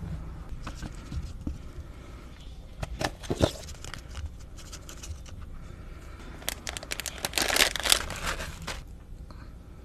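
Food packaging being handled and opened: crinkling and tearing, in a short burst about three seconds in and a longer run of crackling from about six and a half to nine seconds.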